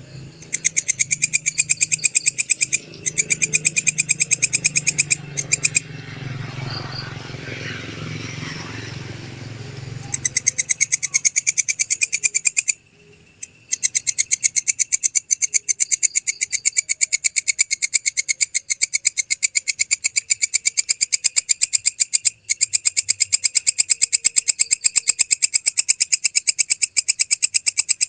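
Walang kecek (belalang kecek) insect singing: a loud, rapid, even train of high, shrill ticks. The song breaks off for a few seconds about a third of the way in, where a low rumble is heard, and pauses again for about a second near the middle.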